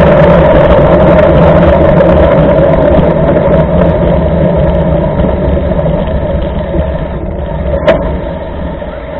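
Loud, steady rumble and hiss of a mountain bike rolling over a rain-soaked road, picked up through a rain-spattered action camera, slowly fading over the last few seconds. A single sharp knock comes about eight seconds in.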